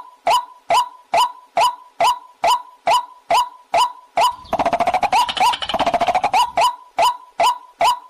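White-breasted waterhen call: a steady run of short, evenly spaced hooked notes, about two and a half a second, interrupted for about two seconds in the middle by a fast, harsh croaking chatter before the notes resume.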